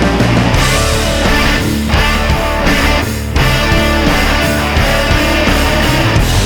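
Loud background rock music with heavy distorted electric guitar, briefly dropping out about three seconds in.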